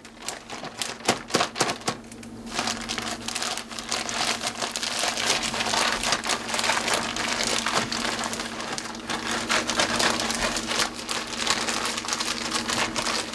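Plastic zip-top bag crinkling and crackling as hands squish and knead the crushed tortilla chips and ramen noodles inside it. There are a few separate crackles at first, and from about two seconds in the crinkling is continuous.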